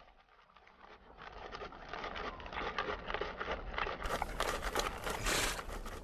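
Przewalski's horses shifting in wet mud and shallow water at a water hole: a dense patter of crackling, scraping and splashing that builds over the first two seconds and grows louder for a moment about five seconds in.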